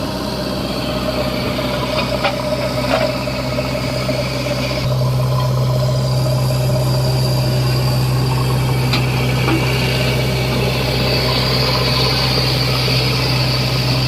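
JCB 3DX backhoe loader's diesel engine running steadily, going up onto a heavier, louder note about five seconds in. A few light knocks sound over it.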